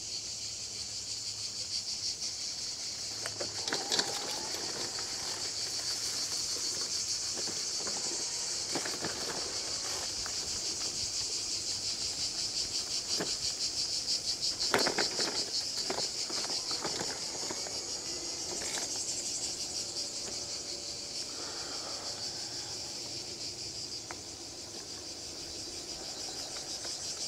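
Insects chirring steadily in a high, rapidly pulsing drone, with a few faint knocks and scuffs about four and fifteen seconds in.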